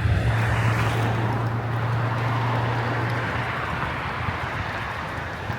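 Street traffic and wind noise heard while riding an electric bike, with a steady low hum that stops about three seconds in.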